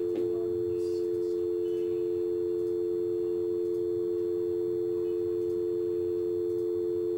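Telephone dial tone from the video phone's loudspeaker: two steady tones sounding together without a break, the phone waiting for a number to be dialled. A couple of faint clicks come in the first second.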